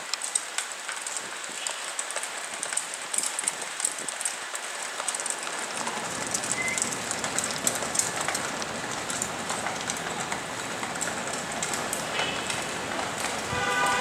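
Steady rain with a dense crackle of drops; a low rumble comes in about halfway through.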